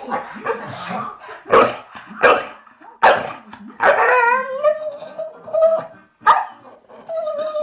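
Male Staffordshire bull terrier giving several sharp barks and yelps, with a wavering whine between them and a long, steady, high whine near the end: the lovesick whining of a male dog while a bitch in the house is in season.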